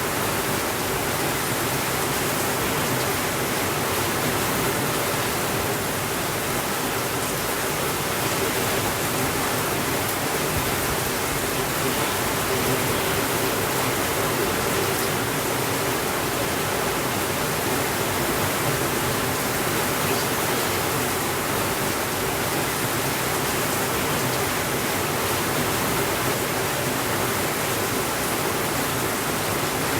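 Steady rainfall, an even unbroken hiss without thunder.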